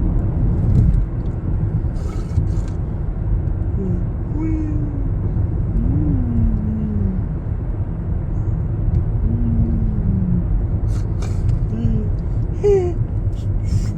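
Steady low rumble, with faint voice sounds now and then.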